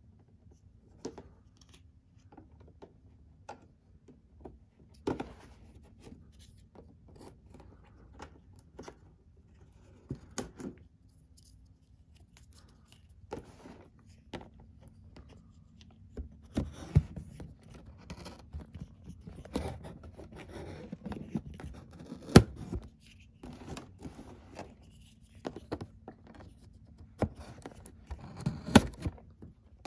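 A cardboard figure box being slit open and handled with a small box cutter: scattered clicks, scrapes and rustles of cardboard and packaging, growing busier about halfway through.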